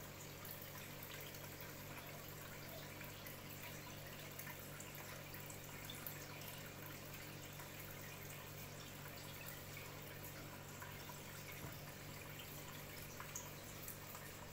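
Aquarium filter running: a faint, steady trickle of water with small drips over a low, steady hum.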